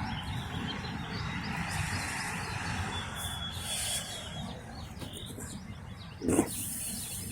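Small birds chirping over steady outdoor background noise, with a brief louder sound about six seconds in.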